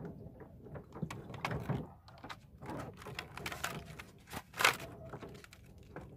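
Irregular knocks and scrapes of longline fishing gear being handled in a small boat, with one sharper knock about four and a half seconds in.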